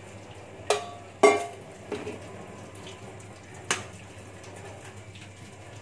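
Boiled instant noodles draining in a perforated plastic colander in a stainless steel sink, with a few sharp knocks as the colander is handled against the sink.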